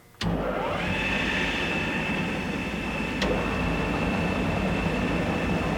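G & P 2MVS-500 double-end grinding and polishing lathe switched on: its electric drive comes on suddenly and spins up with a rising whine over about half a second, then runs at speed with a steady high whine over a low hum. A single sharp click about three seconds in.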